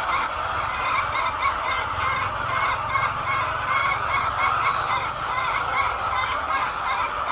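A large flock of laying hens clucking and calling all at once, many voices overlapping into a steady din.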